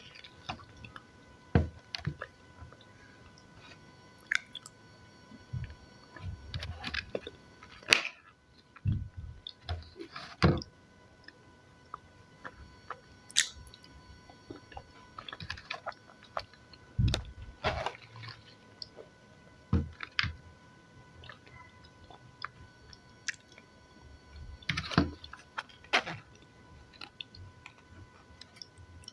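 A person chewing and biting salad close to the microphone: irregular crisp crunches and wet mouth sounds, coming in bursts with short pauses between them.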